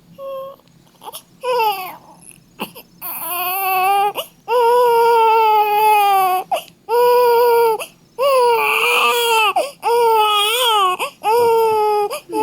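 Baby crying: a few short falling cries, then from about three seconds in a run of long, loud wails with short breaks for breath between them.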